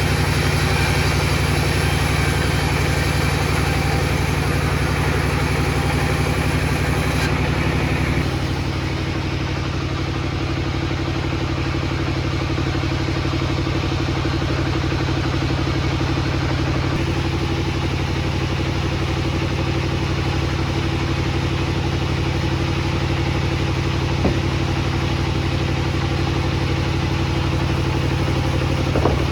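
Table saw running with a steady motor hum. About eight seconds in, its tone shifts and it gets slightly quieter.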